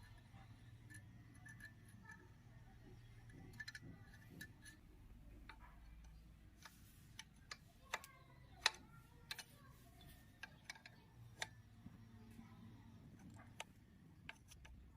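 Faint, irregular small clicks and taps, a dozen or more scattered through, with one sharper click a little past the middle, over a low steady hum.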